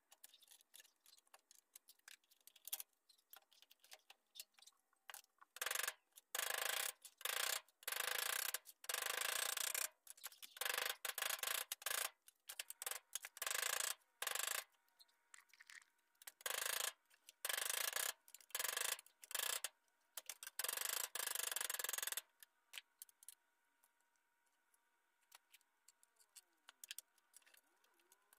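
Hand-tool work on a ribbed rubber window seal strip: scattered clicks of pliers and metal, then from about six seconds in a long run of short, loud rasping or scraping strokes, each under a second, which stop a few seconds before the end.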